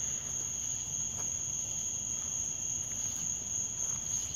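Night insect chorus: a steady, unbroken high-pitched trill with a fainter, lower trill beneath it.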